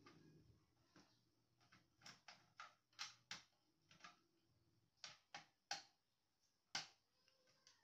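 Faint, irregular clicks and taps of hard plastic and small parts being handled while an HP LaserJet P1006 laser printer is taken apart, about a dozen sharp clicks at uneven intervals.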